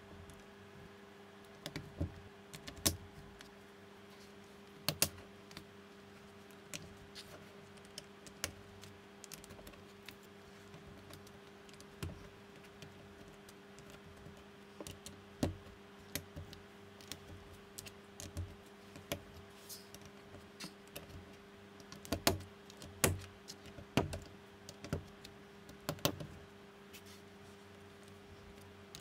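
Plastic LEGO-compatible bricks clicking and snapping as they are pressed onto a baseplate and each other: irregular sharp clicks, in small bunches, over a faint steady hum.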